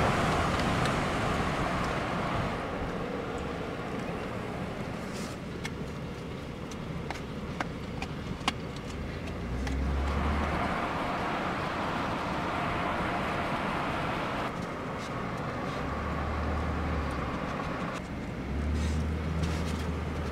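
Pickup truck driving along a paved mountain road: steady tyre, engine and wind noise heard from outside the cab, with a low hum that rises and falls and a few light ticks around the middle.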